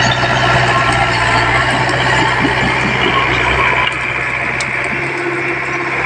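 Komatsu D20P mini bulldozer's diesel engine running steadily under load as it pushes mud with its blade, easing off slightly about four seconds in.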